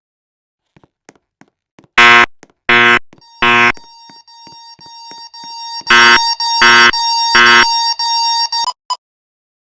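Fire alarm horns sounding the temporal-3 evacuation pattern: two sets of three short, loud blasts, the second set about four seconds after the first. A steady high tone builds up beneath the blasts, and then everything cuts off suddenly near the end.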